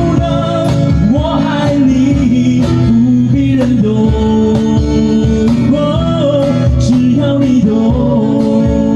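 Live acoustic band music: a man singing a ballad melody over two strummed acoustic guitars, with a steady beat slapped on a cajón.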